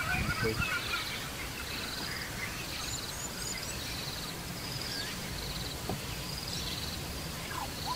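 An insect trilling in short, evenly repeated bursts, about one a second, over a low wind rumble, with a few faint high bird chirps.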